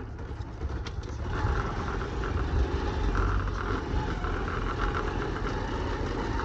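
JCB 3DX backhoe loader's diesel engine running steadily as the machine drives over rough field ground, growing louder about a second in.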